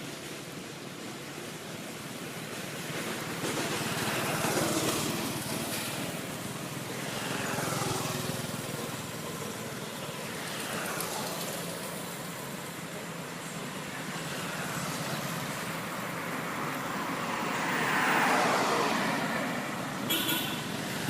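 Road traffic: several vehicles pass one after another, each swelling up and falling in pitch as it goes by, the loudest near the end.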